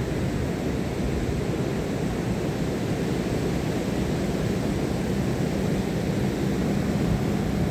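Ocean surf at a beach, a steady low rumble of waves breaking with no distinct crashes.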